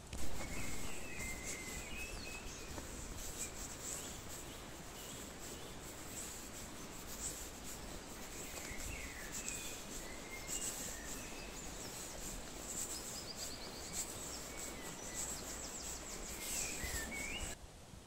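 Water rushing steadily over a low river weir, with birds chirping briefly above it a few times and a short trill about two-thirds of the way in. The rushing starts abruptly and drops off suddenly near the end.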